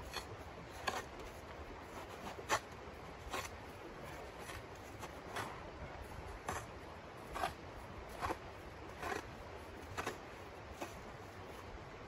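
Small shovel scraping and chopping at crusted snow in short, separate strokes, roughly one a second.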